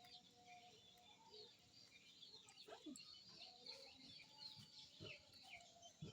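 Faint birds: many short, high chirps overlapping throughout, with a few lower, clucking calls mixed in.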